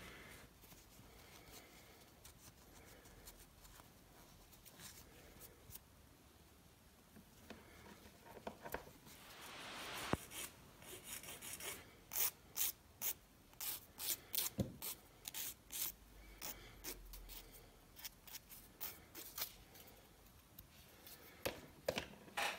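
Faint rubbing of an alcohol-soaked cotton round wiped over bare fingernails to clean off leftover dip powder residue. It builds to quick, short strokes about two a second in the second half.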